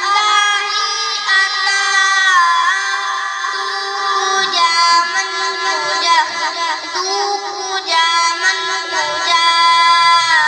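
A song: a high-pitched voice sings long held notes that bend in pitch, over a steady lower accompanying tone.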